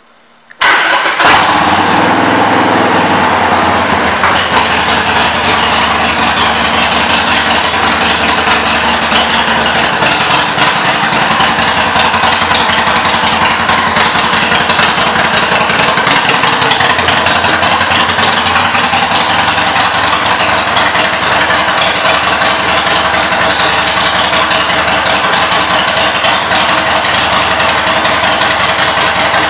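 2015 Harley-Davidson Sportster 1200 Custom's air-cooled 1200 cc V-twin, fitted with Vance & Hines aftermarket pipes, firing up about half a second in and then idling steadily and loudly through the exhaust.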